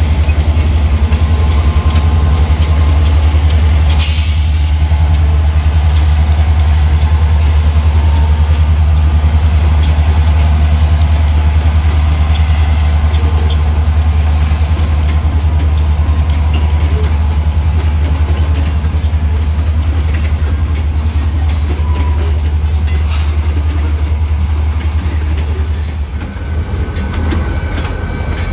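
Freight train of loaded covered hopper cars rolling past close by: a steady heavy low rumble with regular clicking from the wheels.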